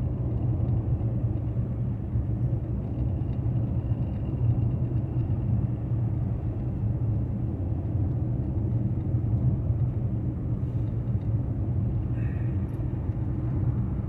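Steady low rumble of a car driving along a road: engine and tyre noise.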